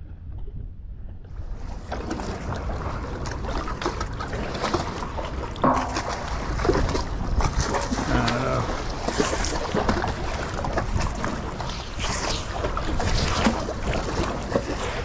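Wind buffeting the microphone over open water, with dense rustling, scraping and clicking from gloved hands hauling in and handling a wet magnet-fishing rope. A short pitched sound comes in around the middle.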